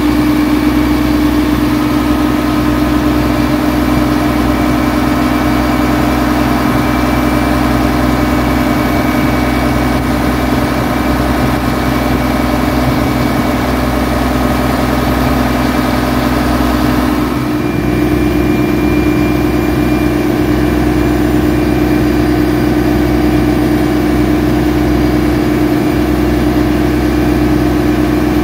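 Boat engine running steadily while under way, with water washing along the hull; the engine note steps slightly higher about 17 seconds in.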